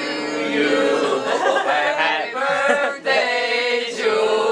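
A group of people chanting together in long held voices as a toast, breaking off briefly about three seconds in and then starting again.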